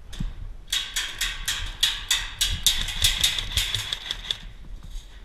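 Airsoft rifle firing a quick string of single shots, about five a second, for some three and a half seconds before it stops.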